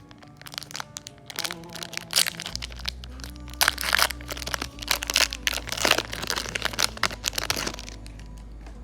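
Crinkling and crackling of a trading-card pack wrapper being handled and torn open, in irregular bursts that are loudest in the middle and stop about a second before the end. Background music with held steady notes plays underneath.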